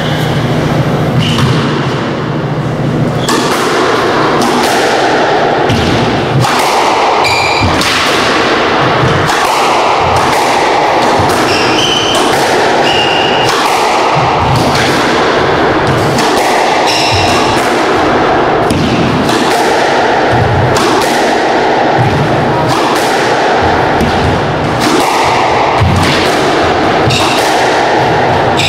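Squash rally: a string of sharp thuds as the ball strikes the racquets and the court walls, with short high squeaks of shoes on the court floor.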